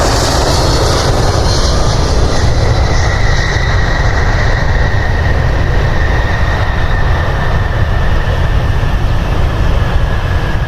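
Jet airliner engines passing close: a loud, continuous rumble with a steady high whine that comes in about two seconds in and sinks slightly in pitch toward the end.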